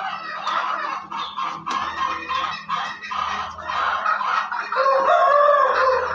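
Chickens clucking continuously, with a rooster crowing near the end.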